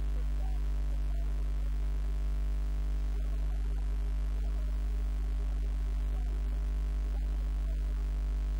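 A steady, unchanging low electrical hum.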